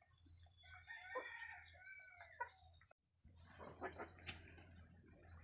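A rooster crowing once, a long call that rises and falls over about two seconds, starting just under a second in. After it, chickens clucking and pecking at scattered grain.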